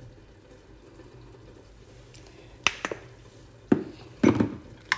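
Honey being added to a lidded container of chopped onion, ginger and fresh turmeric: the pour itself is faint, then a few sharp clinks and knocks of kitchen utensils against the container about three seconds in, with a short clatter near the end.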